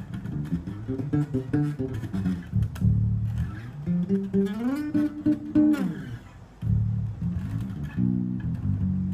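Cort A5 five-string electric bass played fingerstyle through a home stereo speaker: a run of plucked low notes, with a slide up the neck and back down around the middle. A short gap comes about two-thirds through, then the notes start again.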